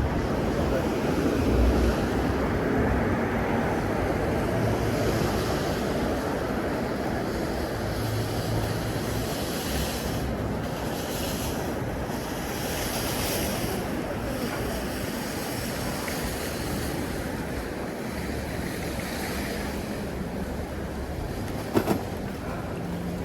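Steady city street noise, a wash of passing traffic, with wind buffeting the microphone. One short knock comes near the end.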